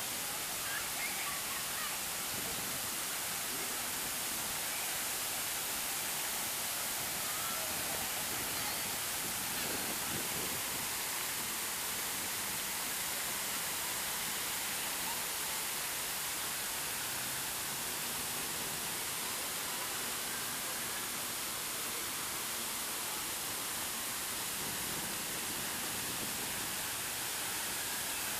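Large fountain's water jets spraying into the pool: a steady rushing hiss.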